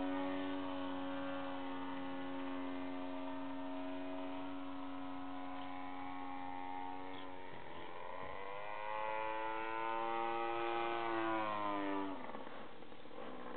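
DLE 30 single-cylinder two-stroke gasoline engine on a Velox 3D radio-controlled aerobatic plane, running in flight. It holds a steady pitch for about seven seconds, dips briefly about halfway through, then rises to a higher pitch under more throttle and falls away near the end.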